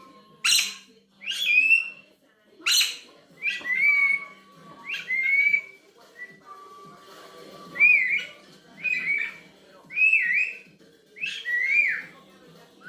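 Parrot giving a series of short whistled calls, about one a second, each a quick bending whistle.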